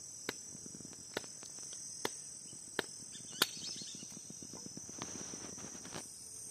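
Steady, high-pitched chorus of insects in the marsh, with sharp clicks about once a second, the loudest about three and a half seconds in.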